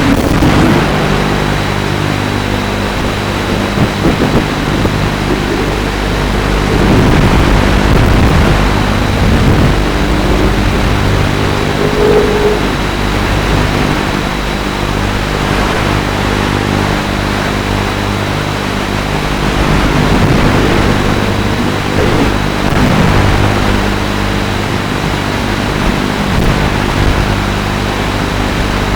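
FPV racing quadcopter's brushless motors and propellers running, heard from the onboard camera with heavy wind rush. The motor hum shifts in pitch now and then as the throttle changes.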